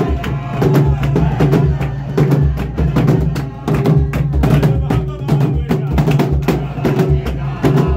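Several large barrel-shaped drums beaten together in a fast, steady rhythm of dense strokes.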